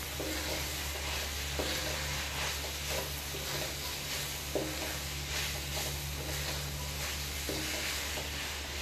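Shredded cabbage, carrot and chicken sizzling in sauce in a metal wok while a wooden spatula stirs and turns them, with a few soft scrapes against the pan. A steady low hum runs underneath.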